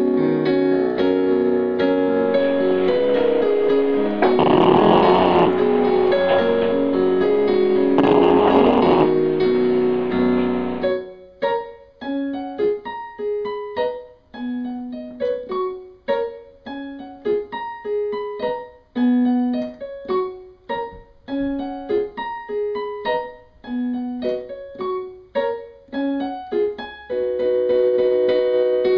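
Background piano music: held chords for the first part, broken by two brief noisy swells, then short, separated notes, with held chords returning near the end.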